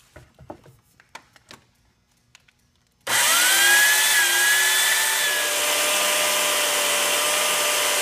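A few light handling knocks, then about three seconds in the T-REX slotter, a corded electric chain-bar cutter, switches on. It whines up to speed and runs steadily as it cuts a quarter-inch slot into the end grain of an 8x8 timber beam.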